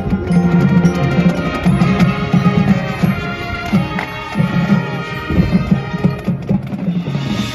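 High school marching band playing: brass and winds over a pulsing low line, with percussion strikes throughout.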